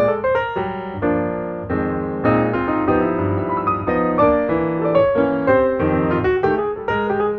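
Solo piano music with a busy melody over a low bass line.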